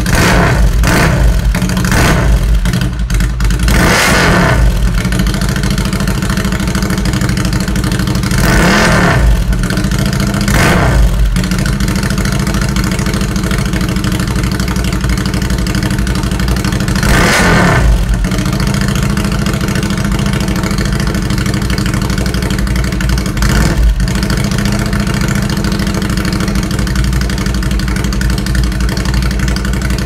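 Ducati Scrambler's air-cooled L-twin running through an HP Corse Hydroform short exhaust: a loud, steady idle broken by several quick throttle blips that rise and fall in pitch, the strongest about 4, 9 and 17 seconds in.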